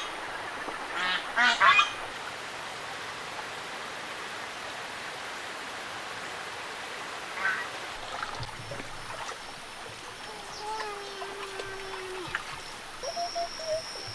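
Farm fowl such as geese or ducks calling loudly in two short bursts within the first two seconds, then a few faint scattered calls over a steady background hiss.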